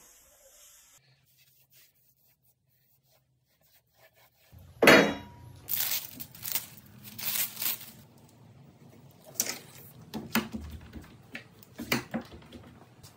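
A loud knock about five seconds in, then crinkling and tearing as clear protective plastic is peeled off a white closet rod on a wooden workbench. A few sharp clicks follow as one-handed bar clamps are squeezed tight onto the rod.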